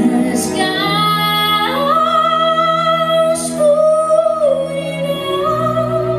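A woman singing a slow ballad live through a microphone over an instrumental backing, holding long notes; her voice steps up in pitch about two seconds in.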